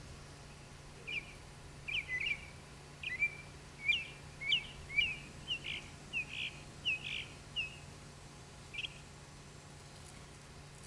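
A songbird calling outdoors in a run of short, sharp chirps, roughly two a second, that stops about a second before the end; a faint steady hum sits underneath.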